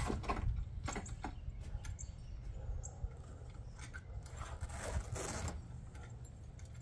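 Clicks, scrapes and rattles of a metal brace bracket being handled and fastened to a sign door, over a low steady rumble.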